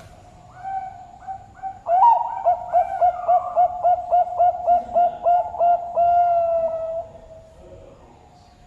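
Zebra dove (perkutut) singing: a few soft opening notes, then from about two seconds in a fast run of about a dozen short, even coos, ending in one long held coo about seven seconds in. Fainter cooing from other doves carries on underneath.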